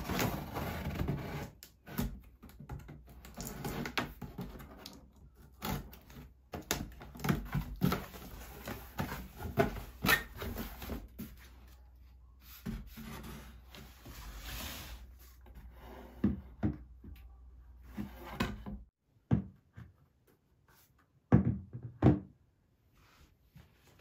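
Cardboard box being opened and handled: flaps rustling and scraping with many small knocks, as a large plastic plant pot is lifted about inside it. Near the end, two louder thumps.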